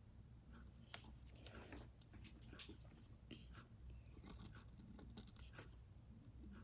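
Near silence: faint, short scratching strokes of a marker drawing on paper, over a low steady hum.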